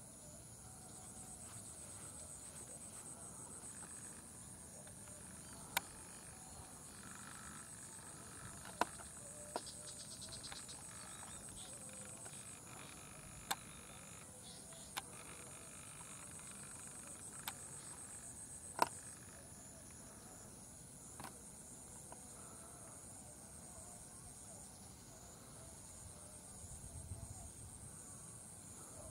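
Faint, steady high-pitched chirring of insects that pulses in long runs. About seven sharp snaps or clicks are scattered through it, the loudest a little past the middle.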